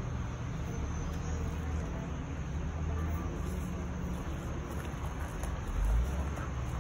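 Steady low hum of an idling engine, with a louder low rumble about six seconds in.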